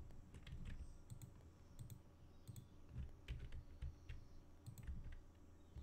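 Faint, irregular clicking of a computer keyboard and mouse in small clusters, as shortcuts are pressed and the mesh is edited, over a low rumble.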